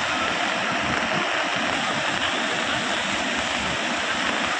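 Floodwater rushing past, a steady, even noise of fast-flowing water.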